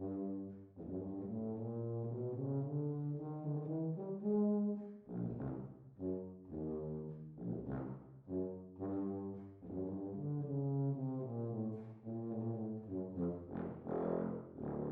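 An unaccompanied low brass instrument playing a solo passage, its notes moving up and down with short breaks between phrases.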